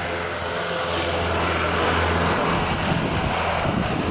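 Jet airliner engines humming steadily over a broad rush of noise, with strong wind rumbling on the microphone, the rumble taking over about halfway through.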